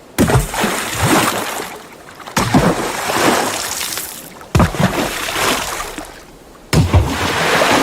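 Water splashes, one after another: four separate splashes about two seconds apart, each a sudden impact into water followed by sloshing that dies away.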